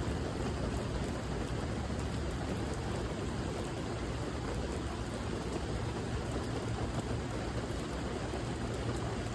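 Steady rain, an even hiss with a deep low rumble underneath and faint scattered drop ticks.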